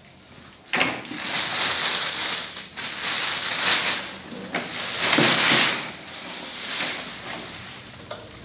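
Plastic wrapping and bubble wrap rustling and crinkling in uneven bursts as it is pulled off an oxygen concentrator.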